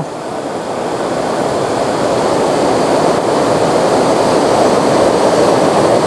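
Waterfall and river water rushing in a steady, loud roar.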